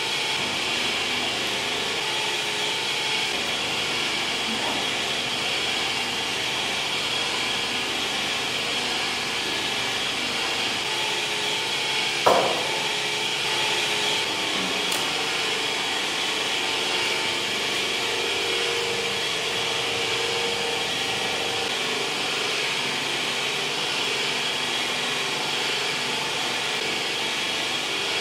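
A steady mechanical whir with a faint constant high whine, broken once, about twelve seconds in, by a brief falling squeak.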